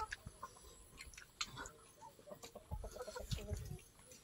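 Chickens clucking quietly, with a run of short clucks in the second half, over faint clicks and soft thumps of people eating with their hands.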